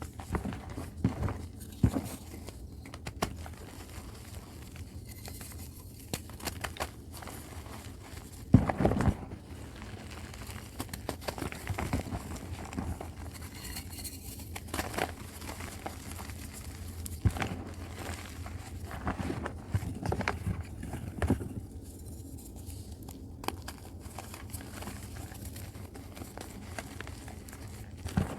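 Dusty chalk reforms being crumbled and crushed, giving irregular crackling and crunching with a louder burst about nine seconds in.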